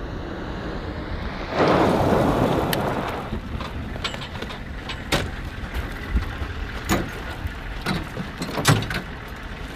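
A military vehicle's engine rumbling as it pulls away over gravel, with a loud rush of tyres and grit about a second and a half in that dies away. Then a few sharp metallic clunks and knocks as gear is handled on the vehicle.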